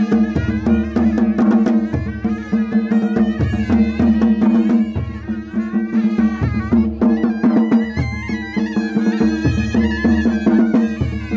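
Ladakhi traditional dance music: a melody moving over a steady drone, with a deep drum stroke about every second and a half.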